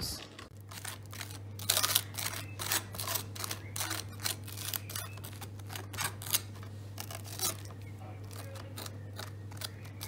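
Table knife scraping chocolate spread across dry toast: a run of irregular scratchy strokes.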